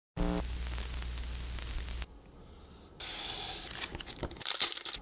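Packaging of a boxed season's greetings set being handled and unwrapped: rustling, crinkling and tearing. It drops quieter about two seconds in and comes back with sharp crackles and clicks near the end.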